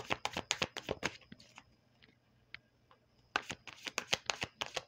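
Tarot deck being shuffled by hand: a quick run of card flicks, a pause of about two seconds with a few faint ticks, then another quick run of shuffling near the end.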